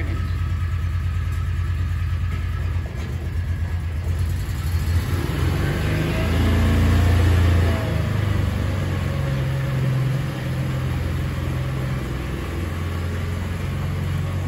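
Side-by-side utility vehicle's engine running as it pulls a trailer loaded with hay and manure out of the barn, louder for a couple of seconds about six seconds in, then running steadily as it moves off.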